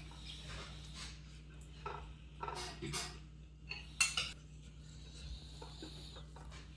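Eating at a plate: short sharp clinks and scrapes against the dish, in a few clusters around the middle, over a faint steady hum.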